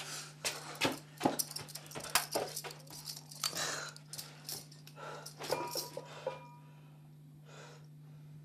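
A man breathing hard, with gasps, amid a quick run of clicks and knocks from movement for about six seconds, then quieter single breaths. A steady low hum runs underneath.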